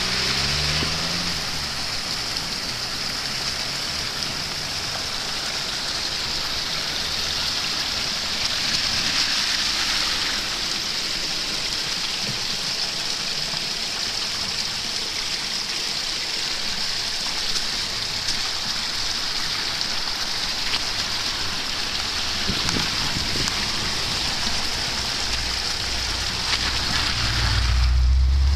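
Steady rushing hiss of water running over the street into a storm drain newly cleared of a leaf blockage. Near the end a car drives through the water, its low engine sound and tyre splash swelling briefly.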